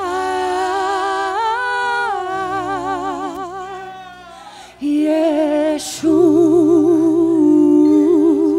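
Slow worship music: a solo voice singing long held notes with a wide vibrato over a steady sustained accompaniment. It fades down around four seconds in, then comes back louder about five seconds in.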